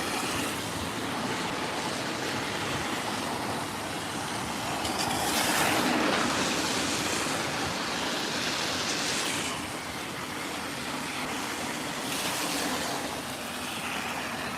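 Vehicles passing on a rain-soaked road: a steady hiss of wet tyres and rain, with three vehicles swishing past in turn, the loudest about a third of the way in.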